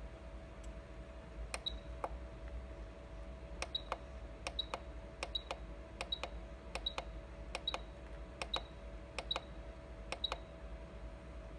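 Control-panel buttons on a Beam Blue Evolution S+ steam cleaner being pressed about a dozen times, roughly once a second, each press a click followed by a short high beep, as the hot-water module is switched on and its water quantity stepped through. A steady hum runs underneath.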